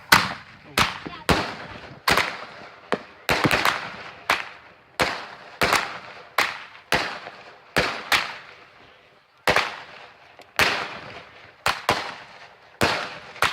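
Consumer aerial fireworks going off in a rapid string of about twenty sharp bangs, roughly two a second at uneven spacing, each trailing off in a short hiss.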